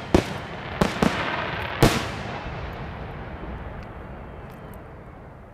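Large aerial firework shells going off: four sharp bangs in the first two seconds, then a rumbling echo that slowly fades away.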